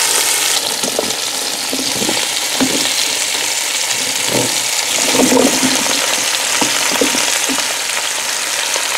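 Sirloin beef roast searing in a multi-cooker pot on the browning setting, fat sizzling steadily, with a few soft knocks as chunks of potato, carrot and onion are set in around it.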